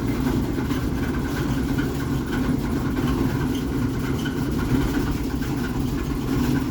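A loud, steady low hum or drone, unchanging in pitch and level, like a large engine or machine running at idle.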